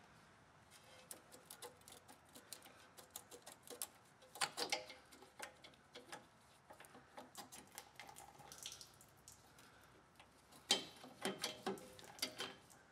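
Faint, irregular clicks and taps of a 2004 Chevy Tahoe's inline fuel filter and its lines being worked loose from the frame bracket by hand, with fuel dribbling out of the filter's open end. The clicks come thicker about four and a half seconds in and again near the end.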